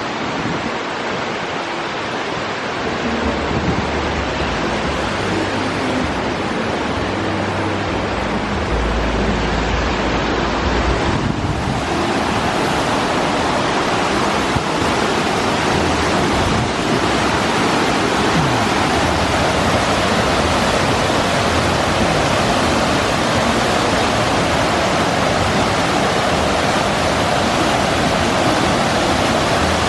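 Wind blowing across the microphone: a steady, loud rushing noise.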